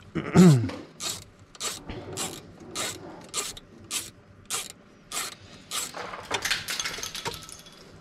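Ratchet wrench with a 10 mm socket turning a bolt on a truck's metal steering-column clamshell: short ratcheting rasps about every half second, coming faster near the end. A brief voice sounds just after the start, the loudest moment.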